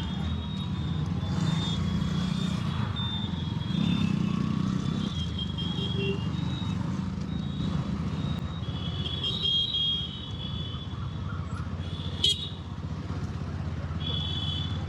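Bajaj motorcycle's engine running steadily under way, heard from a helmet-mounted mic with rushing wind over it. Horns of other traffic sound briefly now and then, and there is a single sharp click near the end.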